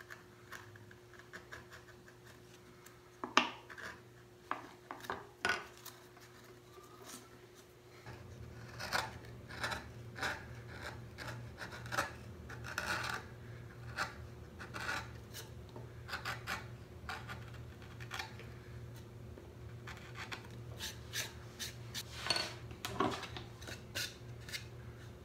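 Hand gouges cutting and scraping into a wooden woodcut block: short, irregular scraping strokes and small taps, with one sharper click a few seconds in. A low steady hum joins about a third of the way through.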